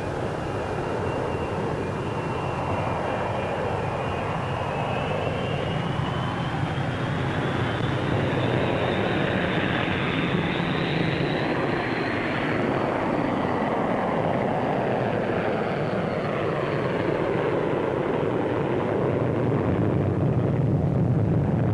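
Jet engines of Avro Vulcan delta-wing bombers in flight, a continuous jet noise. A high whine climbs steadily in pitch over the first dozen seconds, then fades, while the noise grows a little louder near the end.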